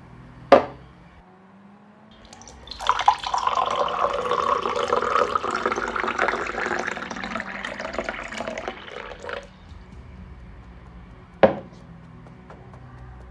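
Liquid being poured steadily for about six and a half seconds, its pitch rising slightly as the container fills. A sharp knock comes about half a second in and another near the end.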